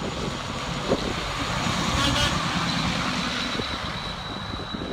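A jeepney driving away through shallow floodwater on a paved road: its engine running, with the hiss and spray of its tyres through the water. The sound is fading as it goes.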